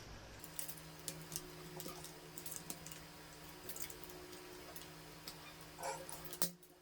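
Plastic card being worked into the seam of a laptop's back cover to pry it off, giving many small irregular clicks and ticks over a faint steady hum.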